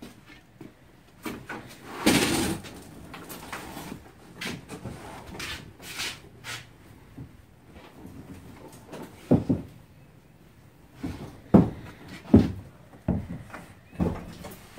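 FeelFree Lure 11.5 plastic fishing kayak being flipped over on a garage floor: a longer scraping noise about two seconds in, then a string of separate knocks and thumps from the hull, closer together near the end.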